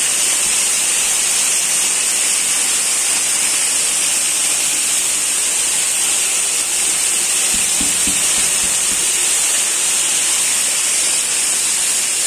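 Borehole water pouring and splashing steadily through the stacked mesh screens of a degassing tower and falling as spray into a fish pond: a continuous hiss. The screens break up the water to strip out dissolved nitrogen and take up oxygen.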